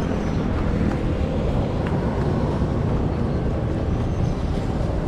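Motorcycle engine idling: a steady low rumble.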